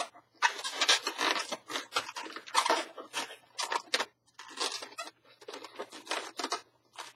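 Latex twisting balloons rubbing and scraping against each other and the hands as a black 160 balloon is twisted into a bubble and locked into an ear twist: an irregular run of short scratchy rubbing sounds.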